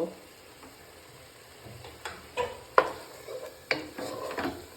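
A spoon stirring curd into a sizzling onion-tomato masala in a pan, with a faint frying hiss and several knocks of the spoon against the pan from about two seconds in.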